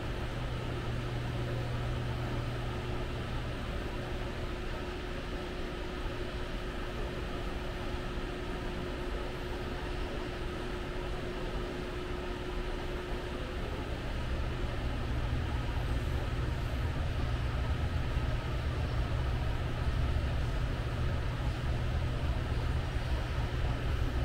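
Steady low mechanical hum with a background of even noise, growing a little louder about halfway through; a faint steady tone stops about halfway.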